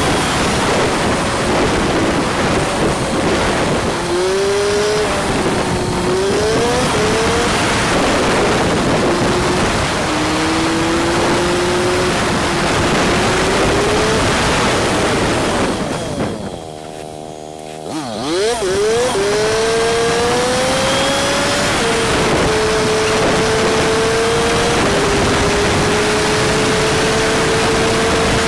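Honda CG125 motorcycle's single-cylinder engine under way, its note rising through the gears and dropping at each change, over a constant noisy rush. About two-thirds through it goes briefly quieter, then climbs again and holds a steady pitch at cruising speed.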